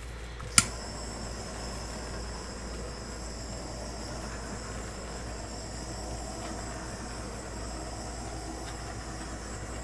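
A click about half a second in, then a small electric air blower running steadily, a hiss of air with a high thin whine.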